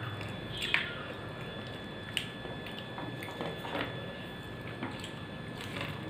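A person chewing and eating rice and curry by hand from a steel plate: wet mouth sounds and fingers squishing food in the plate, with a few short sharp clicks, the loudest just under a second in.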